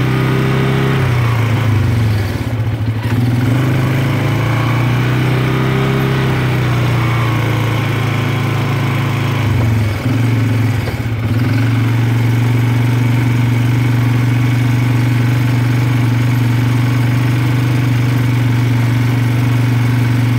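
Vehicle engine running at low speed, close by, its pitch dipping and rising again a few times as the throttle changes, then holding steady for the second half.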